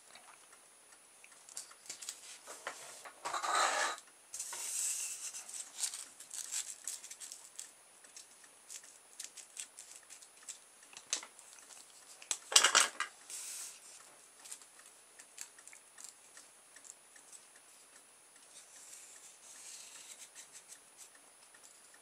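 Hands handling a thin white strip and a roll of tape on a cutting mat: scattered clicks, taps and rustles as the strip is bent around the roll and pressed into place, with a louder crackling rustle a little past halfway.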